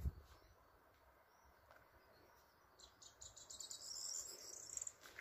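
Near silence at first, then a little under three seconds in, a faint high-pitched insect chirring: a rapid, evenly pulsing trill that dies away near the end.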